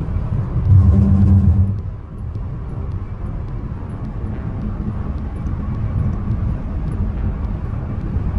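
Steady low road and tyre rumble inside a Buick Encore GX cruising at highway speed, louder for about a second near the start.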